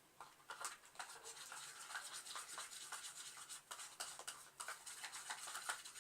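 Fast, irregular scraping and rubbing of a utensil stirring slime glue mixed with colouring in a container.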